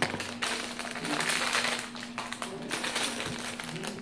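A clear plastic LEGO parts bag crinkling and rustling as it is handled, full of small sharp crackles.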